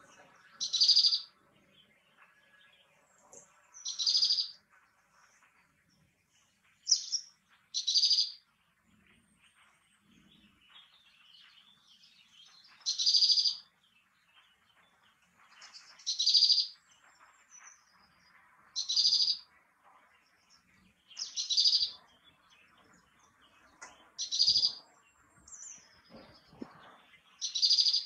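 Great tit repeating short, high-pitched phrases about every two to three seconds, around ten in all.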